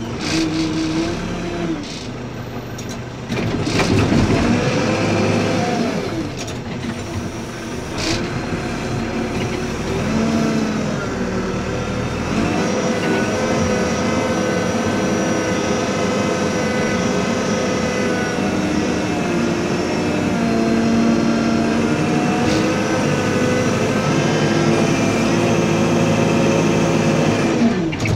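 Backhoe loader's diesel engine running under load, its pitch rising and falling repeatedly as the machine is worked, with a few sharp knocks from the machine; the engine holds steadier and higher over the second half.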